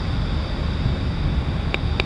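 Wind buffeting the microphone outdoors: a steady low rumbling rush, with one faint click near the end.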